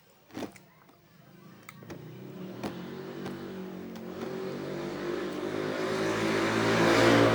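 A motor vehicle on the road approaching, its engine and road noise swelling steadily louder over several seconds to a peak near the end. A few small clicks come before it.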